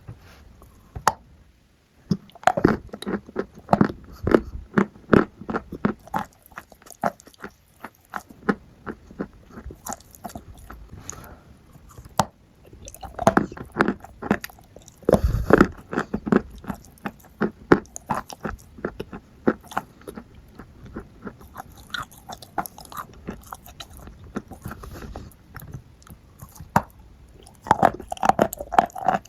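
A person biting and chewing crunchy food: a long run of quick crunches, bunched in clusters with short pauses between.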